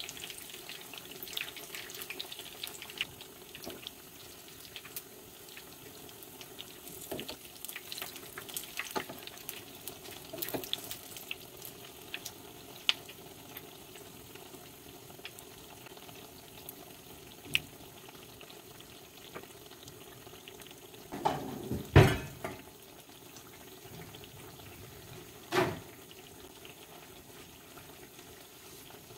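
Batter-coated potato slices deep-frying in hot oil in a small nonstick pan: a steady sizzle with scattered crackling pops. A cluster of louder knocks comes about 21 seconds in, and one more near 26 seconds.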